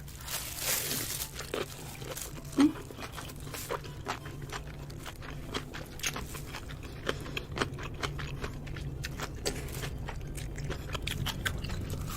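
Close-miked eating sounds of a person chewing a mouthful of noodles, with many small wet clicks and smacks. There is a brief hum from the eater about two and a half seconds in.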